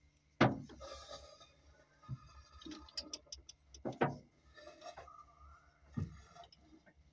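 Hand tools knocking and clinking on the rocker arms of a Cummins NT855 diesel engine during tappet (valve lash) adjustment. There are about four sharp metal knocks a couple of seconds apart, the first the loudest, with a quick run of light ticks in the middle.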